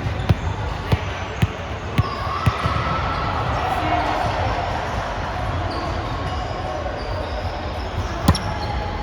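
Volleyball impacts echoing in a gym hall: several sharp thumps of the ball being hit or bouncing on the floor in the first two and a half seconds, then a single thump near the end, over background voices and hall noise.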